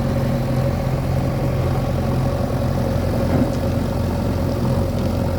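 JCB 3DX backhoe loader's diesel engine running steadily at a constant speed.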